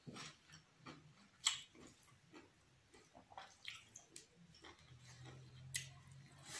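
Faint mouth sounds of a man eating rice and chicken curry by hand: wet chewing and lip smacks, with a sharp smack about a second and a half in.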